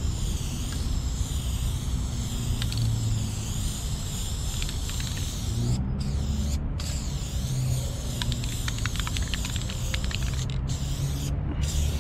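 Aerosol spray paint can hissing in long sprays, cut by a few brief pauses where the nozzle is let go, about halfway and near the end. A steady low rumble runs underneath.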